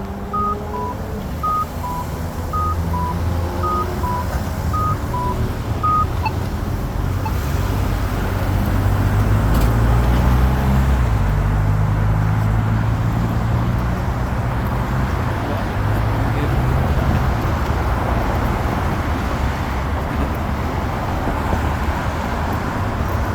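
Polara iNS accessible pedestrian push button sounding its locator tone: a short high-then-low beep pair about once a second, which stops about six seconds in. Road traffic rumbles steadily underneath and grows louder after the beeps end.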